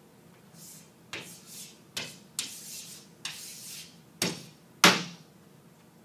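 Chalk writing on a blackboard: about seven quick strokes, each a sharp tap followed by a short scratch, the last one the loudest.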